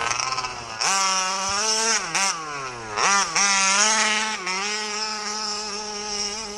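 Two-stroke petrol engine of a 1/5-scale MCD RC car revving hard: its pitch sweeps up sharply three times as the throttle is opened, then holds at a steady high-revving whine from about three seconds in.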